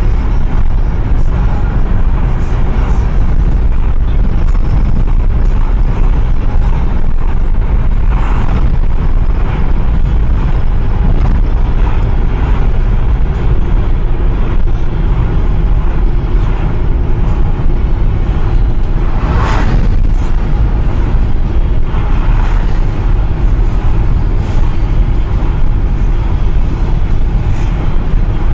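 Road and engine noise heard inside a moving taxi's cabin: a loud, steady low rumble, with a couple of brief louder swells of traffic noise.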